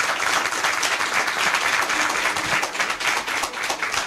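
A small group of people applauding, many hands clapping at once.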